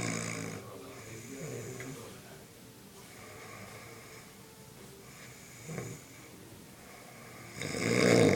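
Heavy snoring: a loud snore dies away just after the start, softer breathing follows, with a brief snort a little past halfway, then another loud snore builds in the last second.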